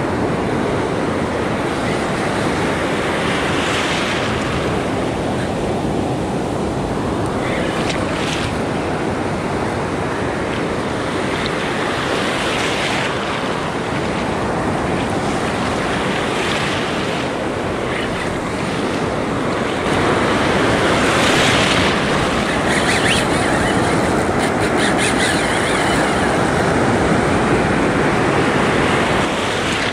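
Ocean surf breaking and foaming white water washing around the wading angler. It is a continuous rush that grows louder about two-thirds of the way through.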